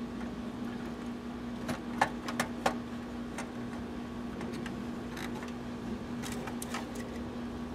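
Screwdriver working the metal terminal screws of an Intermatic time clock, a scattering of sharp clicks and ticks over a steady low hum.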